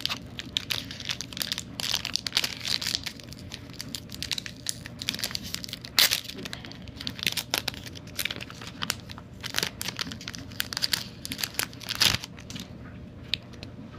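Pokémon card booster pack's foil wrapper being crinkled and torn open by hand, a long run of irregular crackles as the pack proves hard to open.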